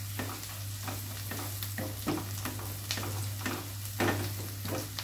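Chopped onion, green chilli and garlic sizzling in oil in a non-stick kadai, stirred with a spatula in quick repeated strokes, about two to three a second, that scrape and toss the pieces. The onion is being fried soft to take away its raw smell.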